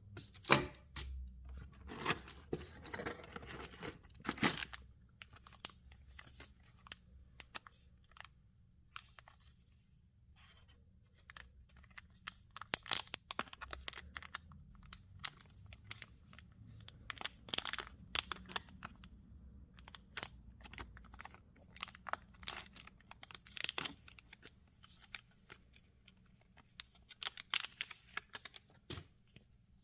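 Packaging being opened and handled: tearing and crinkling with many scattered clicks and taps.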